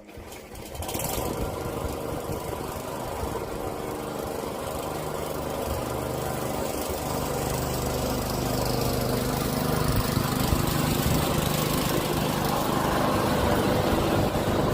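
Petrol lawnmower engine running steadily while mowing grass, gradually getting louder toward the end.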